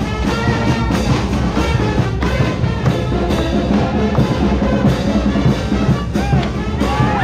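Brass band music with trumpets and trombones over a steady drumbeat.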